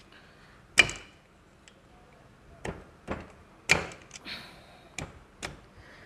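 Screwdriver and pliers knocking and clicking against the seized engine oil pump of a Bajaj Pulsar NS 160's opened crankcase as it is pried out: about seven sharp knocks, the loudest about a second in and again a little past halfway. The pump is jammed solid and has to be broken out.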